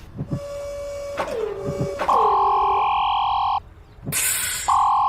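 Two long, steady electronic beep tones, the first about a second and a half long and the second about a second, each switching on and off abruptly, with a short noisy burst between them. Before them comes a quieter held tone broken by two falling swoops. These are added comedic sound effects.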